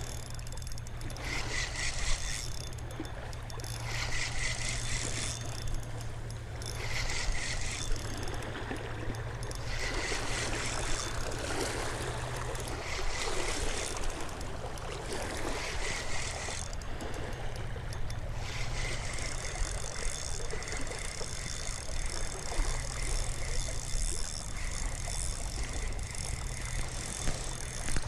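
Spinning fishing reel being cranked, the line retrieved in short turns every two to three seconds, then steadily from about two-thirds of the way in. A steady low rumble runs underneath.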